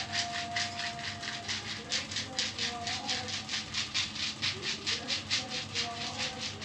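Massage percussion: a hand rapidly and evenly tapping bare skin at the back of the neck and shoulder, about five strikes a second.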